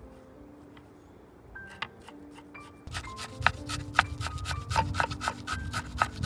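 Large kitchen knife rapidly chopping fresh parsley on a wooden cutting board. The blade knocks against the board several times a second, starting about three seconds in.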